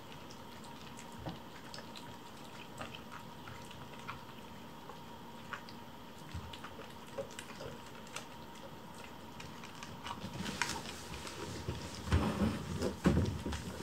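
Kittens eating from bowls: soft wet lapping and chewing, with small scattered clicks of mouths against the dishes. Near the end come louder low thumps and rustling.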